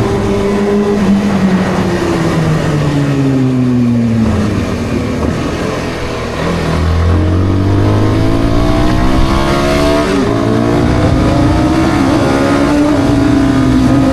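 Kawasaki ZX-6R inline-four engine, heard from the rider's seat: the revs fall for several seconds as the bike slows, then about six seconds in they climb in steps through the gears and hold high.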